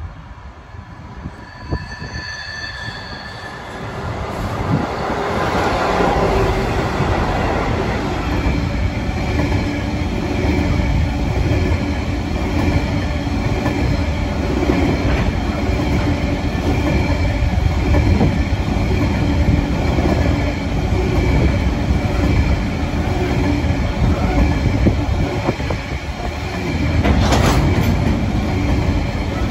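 A grain train passing close by: the diesel locomotive comes up and goes past, then a long rake of steel hopper wagons rolls by with a steady low rumble, wheel clatter and thin high wheel squeal. There is a brief louder burst about 27 seconds in.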